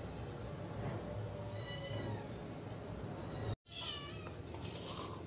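Two faint, short pitched animal calls, about two and four seconds in, each bending in pitch, over a low steady hum.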